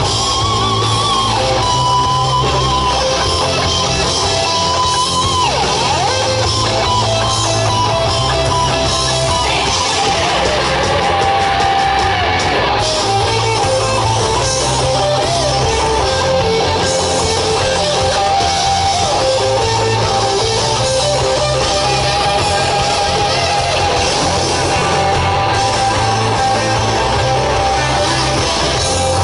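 Live rock band playing an instrumental section: an electric guitar lead with sustained, bending notes over a driving bass and drums, as heard through the PA from within the crowd.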